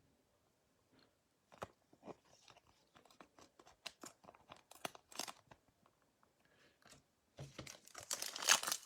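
Scattered soft clicks and rustles of trading cards being handled, then, near the end, a louder crinkling and tearing as a card pack's wrapper is ripped open.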